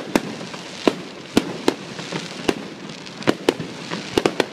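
Aerial fireworks shells bursting one after another: about ten sharp bangs at irregular intervals, several in quick succession near the end, over a steady hiss.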